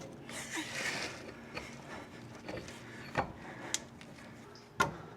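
Hand tools and steel suspension parts being handled: a soft rustle, then three sharp metallic clicks and knocks in the second half.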